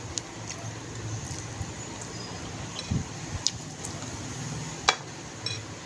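Eating sounds: small wet clicks and smacks of chewing and of chicken meat being pulled apart by hand, with a sharper click about five seconds in, over a steady low hum.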